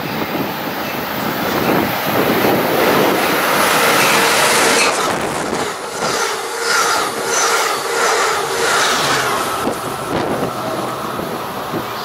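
Amtrak passenger train passing through the station at speed without stopping: a rush of noise builds as the locomotive comes by. Then the wheels clatter at a steady beat of about two a second, with a faint ringing tone, as the bilevel cars go past, and the sound eases off near the end.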